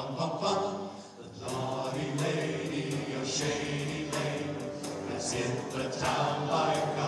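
Men's vocal ensemble of about a dozen voices singing together into microphones, with a brief dip about a second in. From about a second and a half in, sharp ticks keep a steady beat under the voices.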